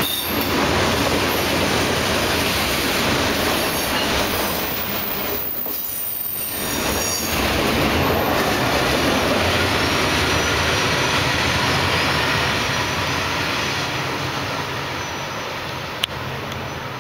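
Freight cars of a long train rolling past close by: steady rumble and rattle of steel wheels on rail. High-pitched wheel squeals stand out about four to eight seconds in, and a single sharp click comes near the end.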